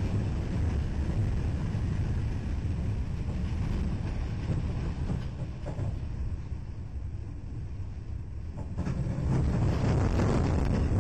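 A Union Pacific freight train running into a tornado: a heavy, steady low rumble of the train mixed with the storm's wind. The rush of wind grows louder about nine seconds in.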